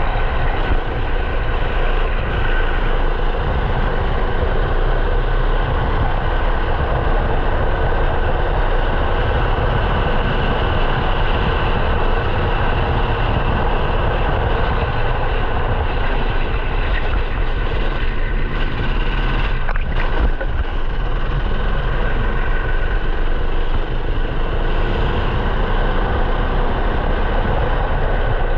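Onboard sound of a 13 hp single-cylinder rental kart engine running hard, its pitch rising and falling as it revs through the corners, under heavy wind rush on the microphone. A single sharp knock about twenty seconds in.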